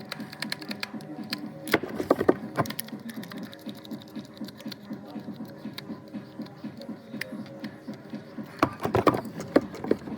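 Hydraulic hose crimping machine running with a rapid, even mechanical pulsing as it crimps a fitting onto an A/C hose. Sharp metal clanks come about two seconds in and again near the end.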